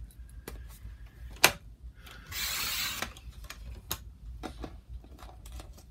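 Small clicks and taps of paper strips and craft tools being handled while making paper beads, with one sharp click about a second and a half in and a short rustling hiss of paper a little before the midpoint.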